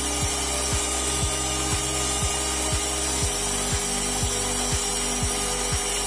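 Handheld vacuum cleaner running steadily with its nozzle pressed to a laptop's cooling vent, drawing out dust. Under it, backing music with a low chord and a beat about two a second.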